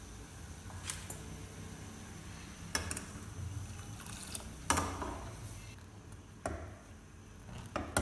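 Milk poured into a steel saucepan, with about five sharp metallic clinks and knocks of utensils against the pan, the loudest a little under five seconds in with a short ring after it, and a steel ladle knocking the pan near the end.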